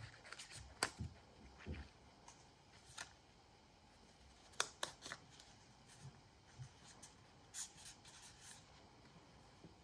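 Faint handling sounds: a few light clicks and taps, with soft paper rustling, as a paper photo is glued and pressed into a small picture frame by hand.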